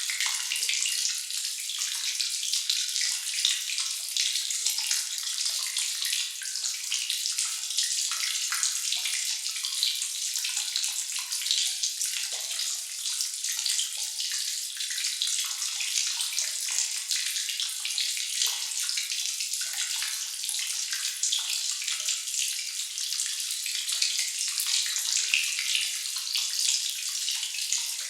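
Water dripping in a sewer or cave: many drops falling at once in a dense, steady patter that never lets up.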